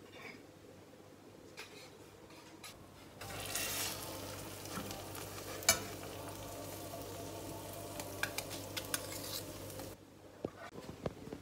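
A few faint clinks of a utensil on crockery, then from about three seconds in a frying pan of eggs cooked in tomatoes sizzles while a metal spoon scrapes and clinks against it, with one sharp clink near the middle. The sizzle cuts off abruptly about a second before the end.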